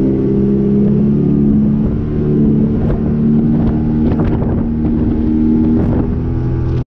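Bass boat outboard motor running steadily underway, with a slight dip in pitch and level about two seconds in and a few short knocks over the engine note after that. The sound cuts off suddenly near the end.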